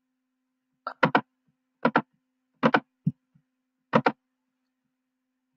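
Computer mouse clicks, mostly in quick pairs (press and release or double-clicks), about five groups spread over a few seconds, over a faint steady electrical hum.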